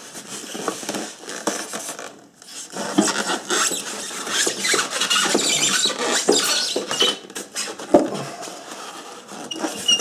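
Polystyrene foam packing block squeaking and scraping against the machine as it is worked loose, with plastic film crinkling. There is a short lull a little over two seconds in and a sharp knock near the end.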